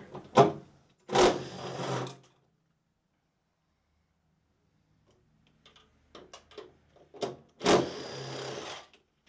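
Socket wrench ratcheting in two quick runs of about a second each, one near the start and one near the end, with scattered light metal clicks between, as 13 mm mounting nuts are backed off the battery cell frame.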